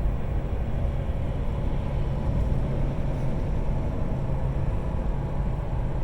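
Jeep Grand Cherokee ZJ engine running steadily, a low even hum.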